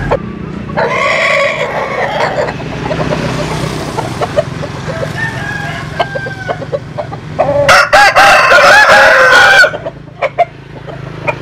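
Vietnamese-American crossbred butterfly roosters crowing: one crow about a second in and a louder, longer crow about eight seconds in, with short clucks between. A steady low hum runs underneath.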